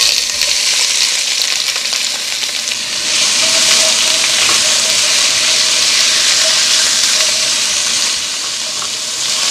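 Sliced onions, bell peppers and thyme sizzling as they hit hot vegetable oil in an aluminium pot over medium-high heat, then stirred with a spatula. The sizzle is a steady hiss that grows louder about three seconds in.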